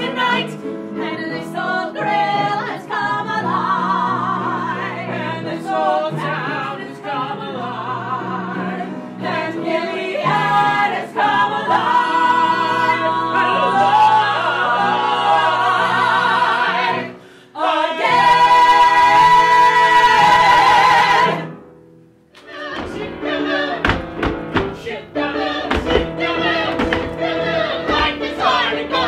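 Mixed ensemble of men's and women's voices singing a musical-theatre number together, building to a long held chord that cuts off sharply about 21 seconds in. After a brief pause the music starts again with sharp, rhythmic hits.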